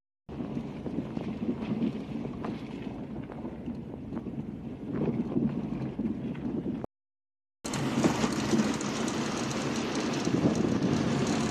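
Steady rumble of a car driving, heard from inside the car, with wind on the microphone. The sound drops out briefly about seven seconds in and comes back louder and hissier.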